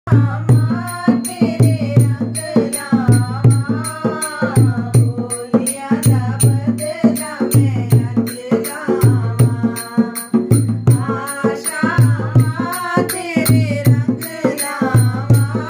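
Background music: a song with a melody that glides in pitch, over a steady beat of low drum strokes and sharp jingling percussion.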